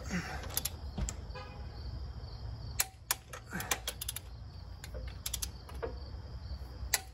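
Ratchet of a torque wrench clicking in short runs as cylinder head bolts on a Jeep 4.0 inline-six are pulled down. A short falling creak under load comes near the start and again about midway.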